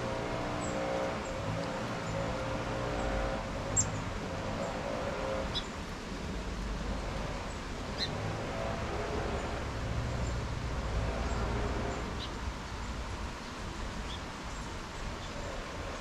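Short, high bird chips now and then, over the low rumble of passing traffic. A sharp high tick about four seconds in is the loudest moment.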